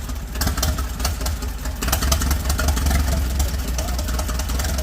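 An engine running with a low rumble and a fast, uneven patter of firing strokes.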